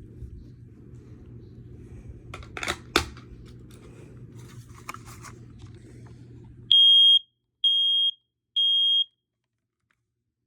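A 0915 smoke alarm sounding on test: three loud beeps at one high pitch, each about half a second long with half-second gaps, the temporal-three evacuation pattern, starting about seven seconds in. Before the beeps come a few handling clicks and knocks over a low hum.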